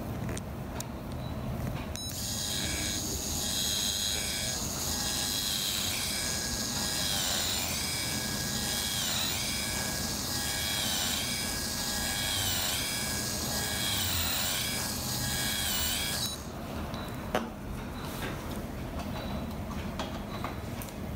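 Endodontic motor's contra-angle handpiece spinning a V-Taper 2H rotary file in a molar's root canal. It gives a steady high whine that starts about two seconds in, dips in pitch again and again through the middle, and stops a few seconds before the end, followed by a single click.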